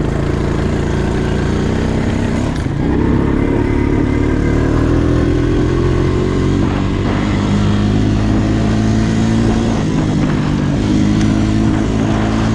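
ATV engine running steadily under way, its pitch dipping a little about two seconds in, then rising and wavering gently with the throttle.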